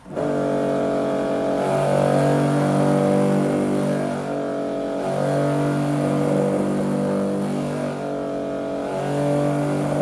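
Karcher K4 pressure washer running with a pitched hum that swells and dips unevenly every few seconds instead of holding steady. The narrator takes this uneven running as likely meaning the pressure washer is being starved of water.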